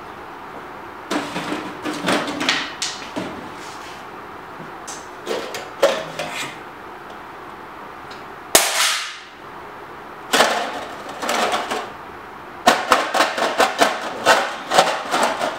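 A round metal tin being handled, opened and rummaged through: bursts of clicks, knocks and metallic rattles, with one sharp clank about halfway through and a quick run of clicks near the end.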